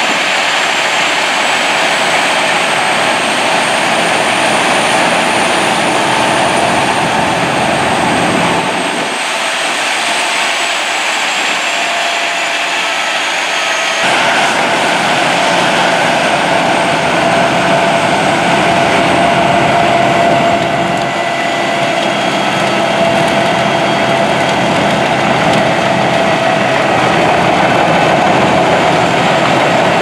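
Albach Diamant 2000 self-propelled wood chipper running under load, chipping brushwood and conifer branches fed through its rollers: a loud steady mechanical din with a high whine that slowly rises and falls.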